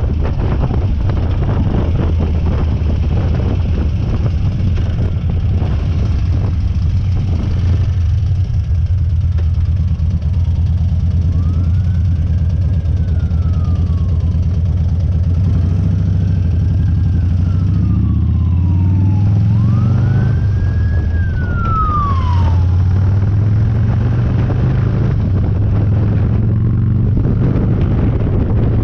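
Harley-Davidson Dyna's air-cooled V-twin running under way, its note climbing for a few seconds past the middle as it accelerates. Partway through, an emergency-vehicle siren wails four times, each wail rising and then falling slowly.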